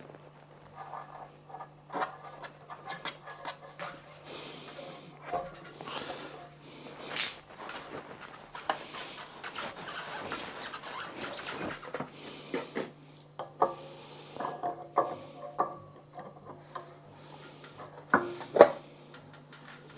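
Hand-tightening threaded plumbing fittings on a water heater: scattered small clicks, knocks and rubbing scrapes, with a sharper knock near the end, over a faint steady hum.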